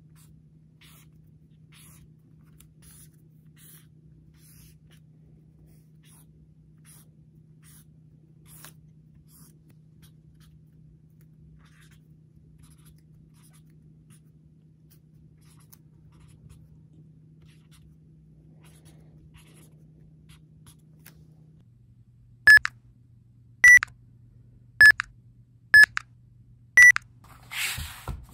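A felt-tip marker scratching in short strokes on notebook paper as a keypad is drawn. Then five loud, short electronic beeps about a second apart, like calculator keys being pressed, followed by a brief rustle.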